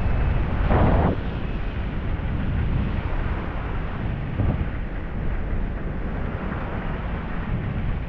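Wind buffeting the microphone of a camera moving fast downhill, a steady low rumble, over the hiss of sliding on groomed snow. A louder scrape swells about a second in and a shorter one about four and a half seconds in.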